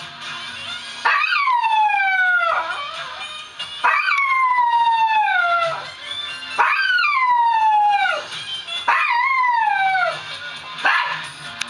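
Small dog howling along to TV theme music: four long howls, each sliding down in pitch.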